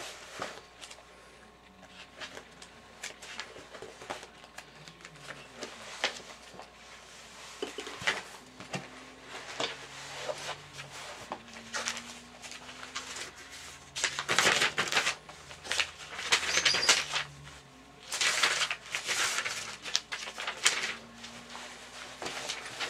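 Papers being rustled and shuffled while someone searches for a homework sheet, in irregular bursts with small knocks and clicks of handling between them.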